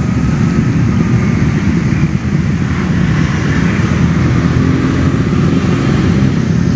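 Wind buffeting the camera's microphone: a loud, rough, low rumble that flickers unevenly and never lets up.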